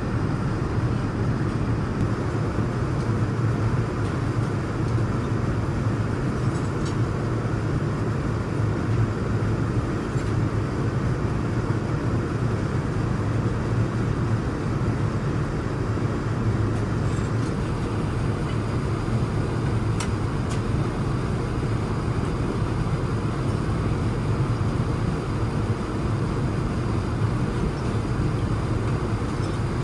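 Steady low cabin noise aboard a Boeing 787-9 airliner, holding an even level throughout. A couple of faint clicks sound in the second half.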